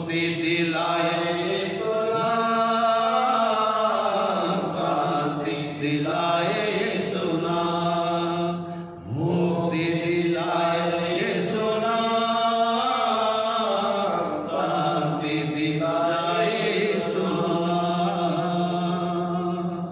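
A man's voice singing a Hindi Christian hymn into a microphone in a slow, chant-like style. Two long phrases of drawn-out, held notes, with a short breath about nine seconds in.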